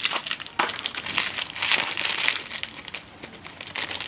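Irregular rustling and crinkling with scattered sharp clicks: plastic parts and wiring of a scooter's electrical system being handled as the old regulator/rectifier is taken out for replacement. Busiest in the first half, quieter near the end.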